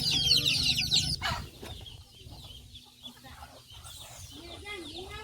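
A flock of chicks peeping, a dense chorus of rapid high chirps that drops off sharply about a second in. After that come scattered fainter peeps and a low wavering chicken call near the end.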